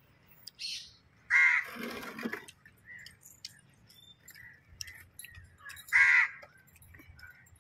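A crow cawing, two loud calls, the first about a second and a half in and the second about six seconds in.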